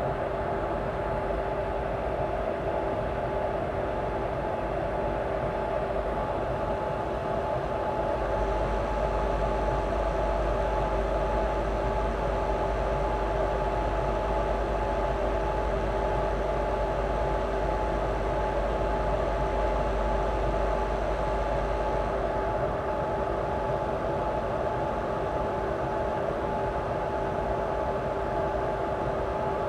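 Twin WAG7 electric freight locomotives idling with a steady whir and hum, two constant tones over a rushing haze. A deeper low rumble joins about a quarter of the way in and drops away again near three quarters.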